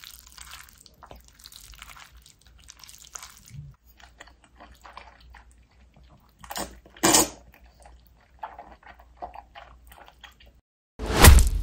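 Wooden chopsticks mixing jjajangmyeon noodles through thick black bean sauce, a soft wet squishing, then the noodles slurped loudly, once about seven seconds in and loudest just before the end.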